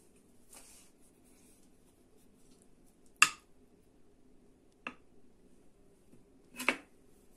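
Metal slotted spatula clinking against a ceramic baking dish and plate while serving food: three sharp clinks a bit under two seconds apart, the first the loudest, over a faint steady low hum.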